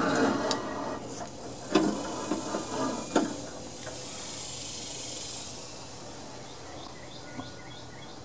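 Several sharp knocks in the first few seconds, then a steady high hiss that swells and fades over about three seconds.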